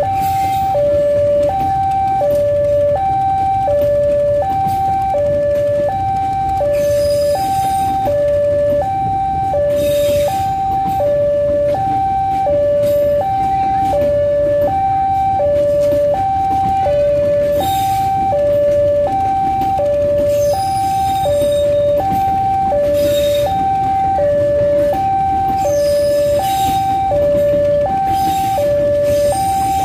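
A level-crossing warning alarm sounding a steady two-tone chime, high and low notes alternating about once every second and a half. Beneath it, the rumble of passenger train carriages rolling past, with occasional clatters from the wheels.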